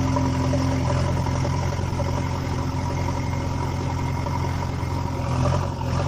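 Engine idling steadily, a low even drone with no change in pitch.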